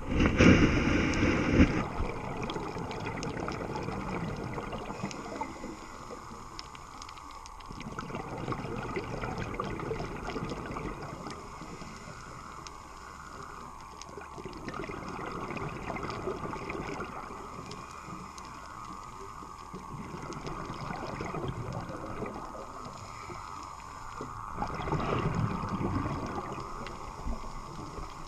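Underwater sound of a scuba diver's breathing: exhaled bubbles gurgle in swells every few seconds, loudest at the start, over a steady hum.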